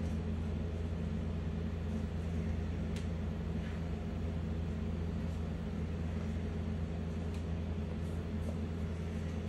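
A steady low mechanical hum, even throughout, with a faint click about three seconds in.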